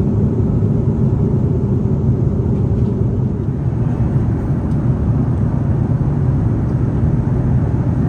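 Steady, loud rumble of an Airbus A330-300's engines and airflow heard inside the passenger cabin.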